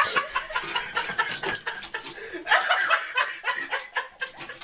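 People laughing and snickering in short broken bursts.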